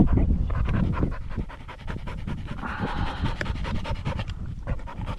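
Pheasant-hunting bird dog panting quickly and steadily, several breaths a second, after working the field.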